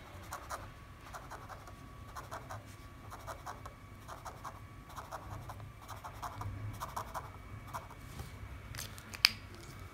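Felt-tip pen scratching on sketchbook paper in quick short strokes as zigzag lines are drawn. A single sharp click comes near the end.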